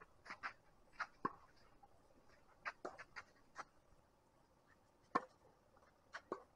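Tennis ball being hit by rackets and bouncing on the court: a series of short, sharp hits in small clusters, the loudest one about five seconds in.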